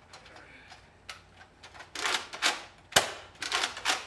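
Plastic clicks of foam balls being pushed one by one into a Nerf Rival Apollo's spring-loaded magazine: a few faint knocks at first, then a run of louder clicks in the second half, the sharpest about three seconds in.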